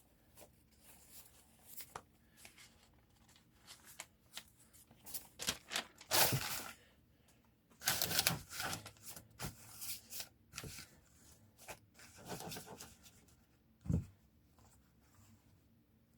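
Newspaper being torn into strips, a run of irregular ripping and rustling sounds, loudest about six and eight seconds in, with a soft thump near the end.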